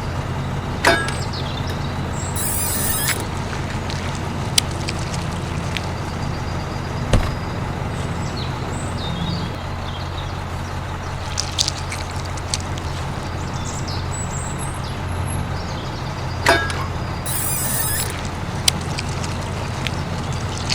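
A small electric motor running steadily with a low hum, with scattered sharp clicks and knocks and two brief hissing bursts.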